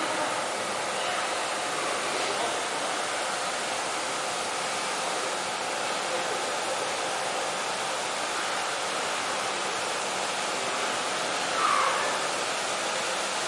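Steady rushing noise on an underground station platform as a Kintetsu 80000 series Hinotori limited express rolls slowly in to stop. A brief louder sound comes near the end.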